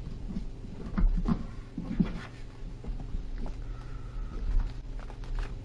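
Sheet of paper rustling and crinkling in short crackles as it is folded and creased by hand, over a steady low hum.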